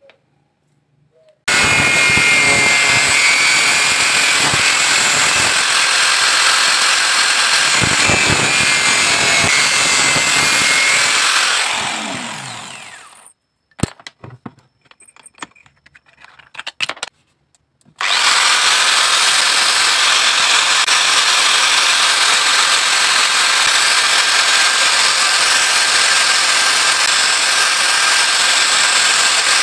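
Electric angle grinder running steadily at full speed, then switched off and winding down with a falling pitch after about ten seconds. A few seconds of clicks and knocks follow while the disc is swapped for a sanding pad. The grinder then starts again abruptly and runs steadily until it winds down at the very end.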